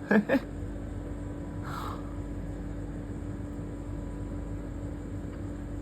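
Steady low hum with one faint constant tone, from the refrigerated farm-food vending machines' cooling units. Two brief vocal sounds come right at the start.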